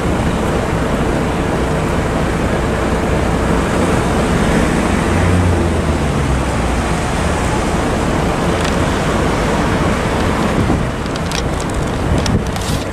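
Wind buffeting the microphone over road traffic noise. A faint steady tone fades out about five seconds in, and a few sharp clicks come near the end.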